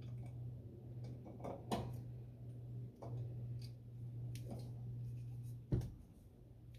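Scattered light clicks and knocks of hands and tools working an M35A2 hydraulic head down into its housing, with one sharper knock near the end. A steady low hum runs underneath.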